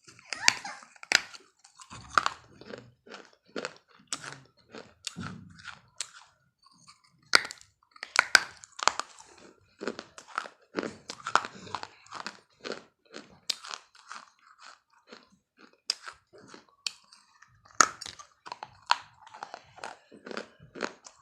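Close-up biting and chewing of hard, brittle pieces, apparently a mix of slate pencil and clay pot, giving sharp, irregular crunches a few times a second, with a short pause near the end.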